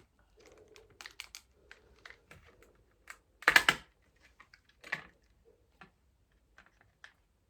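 Scattered light plastic clicks and taps from handling the CPU packaging and motherboard socket parts, with a louder clatter about three and a half seconds in and another near five seconds.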